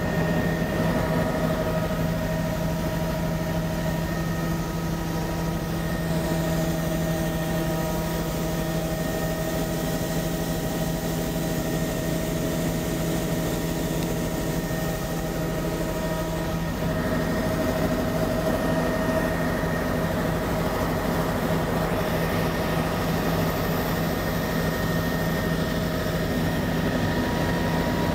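Propeller aircraft's piston engine running steadily in flight, heard from inside the cabin of the camera plane. Its tone shifts slightly about two-thirds of the way through.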